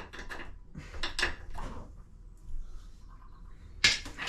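Small metal clicks, knocks and scrapes of basin tap parts being handled and worked apart by hand, with a sharper knock near the end.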